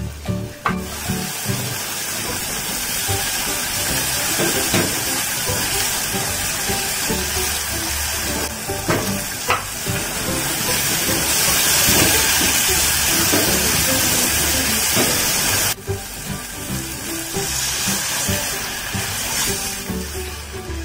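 Tomato wedges and chopped spring onions sizzling as they are stir-fried in a nonstick pot, with a few sharp spatula knocks; background music plays underneath. The sizzling cuts off suddenly about three-quarters of the way through, then picks up again.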